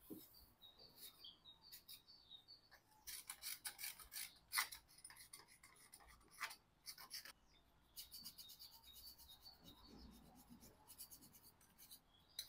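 Faint, quick rubbing and scraping strokes as the thermostat mounting surface on a Fiat 500 engine is cleaned, in two runs with a short break about seven seconds in.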